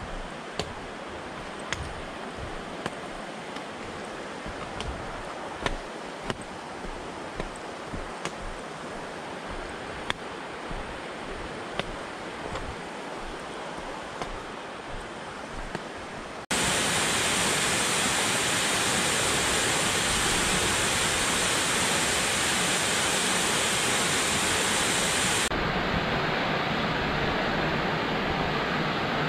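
Footsteps scuffing and clicking on a stony, leaf-covered trail over a steady rush of running water. About halfway through it switches abruptly to the louder, even rush of a waterfall pouring into a pool.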